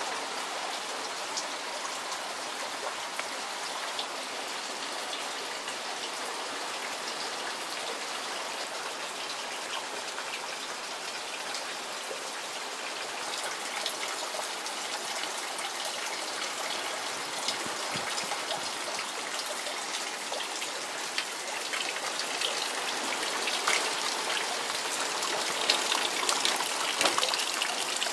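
Steady rain falling, with water pouring out of a roof gutter's outlet and splashing onto the plants below. The splashing grows louder near the end.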